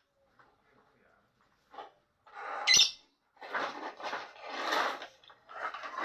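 Lovebird calling: quiet for the first couple of seconds, then a sharp shrill chirp and a run of harsh chattering calls.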